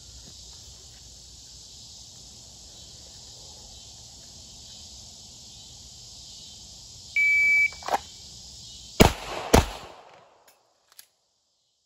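A steady high hiss, then a shot timer beeps once for about half a second some seven seconds in. About a second and a half later come two shots from a Smith & Wesson M&P9 9mm pistol, about half a second apart: the opening pair of a F.A.S.T. drill before the slide-lock reload. After the shots the sound drops almost to nothing.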